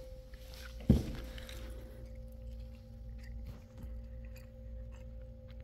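A steady faint hum with a single sharp thump about a second in, and a few faint ticks after it.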